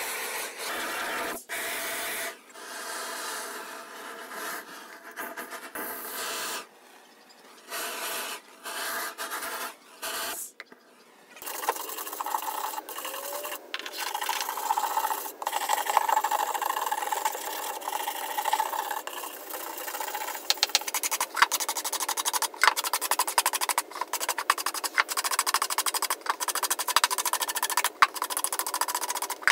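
A long-wand propane torch hissing in on-and-off bursts as it scorches wood. Then a stiff hand brush scrubbing the charred pallet wood in quick, repeated scraping strokes.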